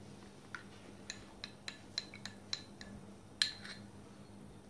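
Steel wire whisk clinking lightly against an aluminium pan of hot milk: about ten small metallic ticks over three seconds, the loudest near the end.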